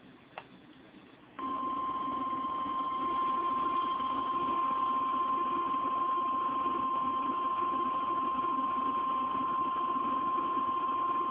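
NOAA Weather Radio warning alarm tone: a single steady high beep that starts about a second and a half in and holds for about ten seconds over radio hiss. It signals that a new severe thunderstorm warning is about to be read.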